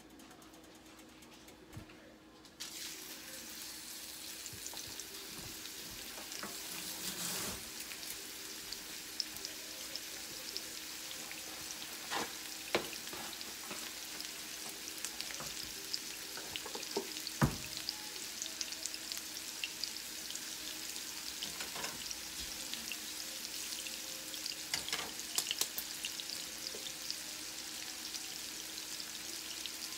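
Steelhead trout fillets frying in hot oil in nonstick pans. The sizzle starts suddenly about two and a half seconds in as the fish goes into the pan and then runs steadily, with a few sharp knocks of pan and utensils.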